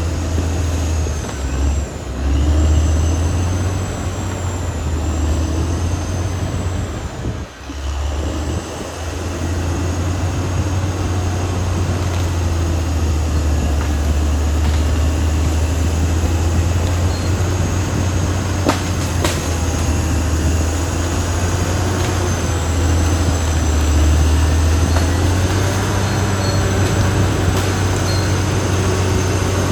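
Caterpillar D6R XL bulldozer's diesel engine running under load with a steady low drone that dips briefly about seven seconds in, along with a thin high whine from the machine and a single sharp clank later on.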